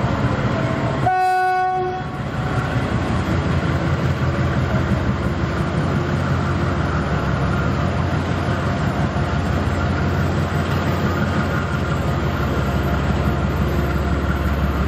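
2ZAGAL two-section diesel locomotive giving one short horn blast about a second in, then its diesel engines running with a steady low rumble as it hauls the passenger train past.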